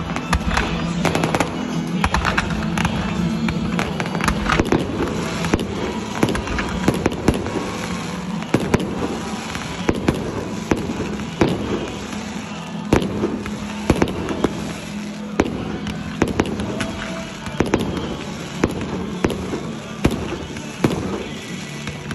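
Fireworks going off in a show: aerial shells bursting with sharp bangs and crackling. The bangs come in a dense rapid run over the first few seconds, then about one a second.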